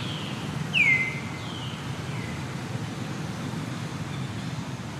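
Short, high animal calls that slide down in pitch: one loud call about a second in, then two fainter ones, over a steady low background rumble.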